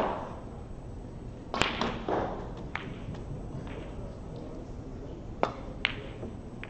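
Snooker break-off: sharp clicks of the cue tip on the cue ball and of balls striking the pack of reds. There is a loud click about a second and a half in, and two more sharp clicks near the end, about half a second apart.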